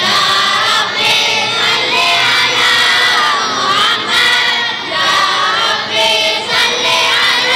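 A congregation of children and men singing a sholawat refrain together, answering the leader's solo line with many voices in loose unison.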